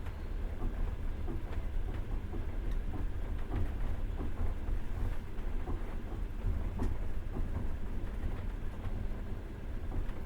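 Passenger train running, heard from inside the carriage: a steady low rumble with scattered, irregular clicks and knocks from the wheels and the car.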